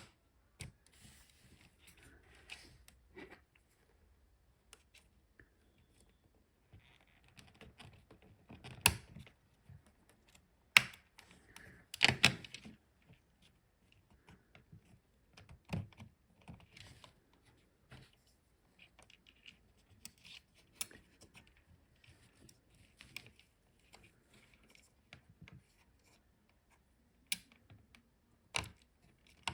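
Irregular plastic clicks and snaps of keycaps being worked on an Amiga keyboard's key switches, with a few sharper, louder snaps in the middle.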